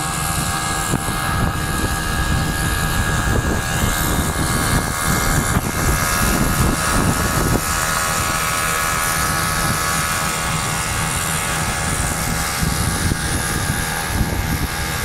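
Small motorcycle and ATV engines running steadily at cruising speed, with a heavy rumble of wind on the microphone from riding along.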